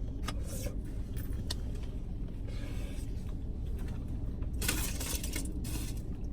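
Eating noises from someone having pasta in a car: a few light clicks and two brief noisy bursts about two-thirds through, over a steady low hum of the car cabin.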